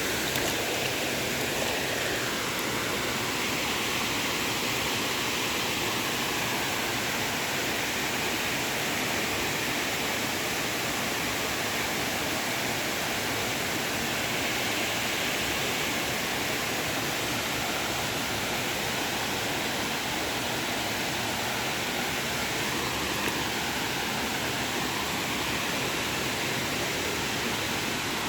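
A tall waterfall thundering steadily into its plunge pool, heard from close by at its base as an even, unbroken rush of falling water.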